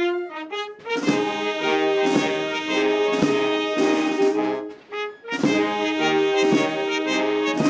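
Military brass band playing a national anthem: full held brass chords with strong low beats roughly every second.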